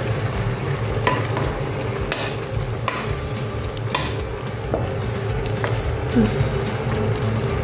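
A spoon stirring a saucy pan of sautéed bottle gourd and chicken over a steady sizzle, scraping and knocking against the pan about once a second.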